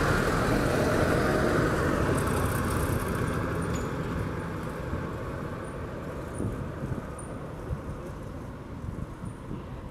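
Volare V8 minibus driving away over cobblestones, its engine and tyres fading steadily.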